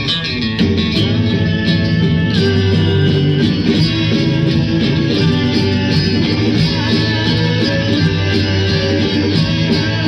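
Rock band playing a 1960s beat-pop song, with guitars over a steady drum beat.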